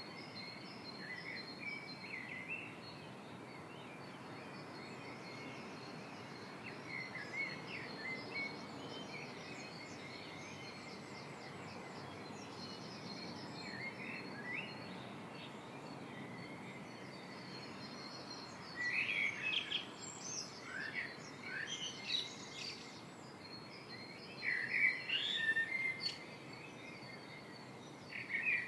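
Birds chirping and singing over a steady background hiss, the calls growing busier and louder in the second half.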